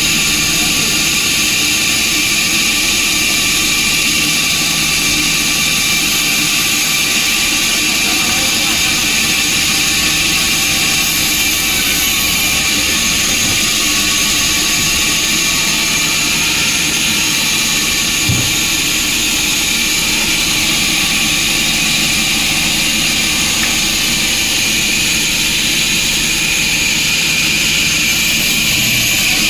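Sawmill machinery running steadily, with an unbroken loud mechanical noise and a constant high whine.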